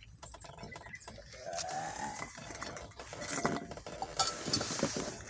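A steel bowl clinking as it is set down on the floor, with a short animal call about two seconds in.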